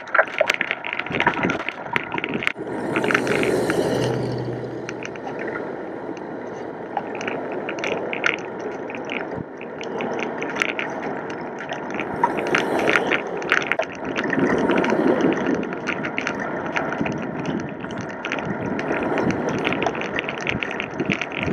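Bicycle riding heard from a handlebar-mounted camera: tyres rolling over gravel and rough pavement, with a constant patter of clicks and rattles from the bike and mount. Rushing wind noise swells up a few times.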